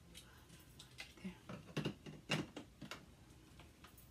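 Hard plastic parts of a Frozen 2 Arendelle Castle dollhouse being handled and fitted together: a handful of light clacks and taps, about one to three seconds in.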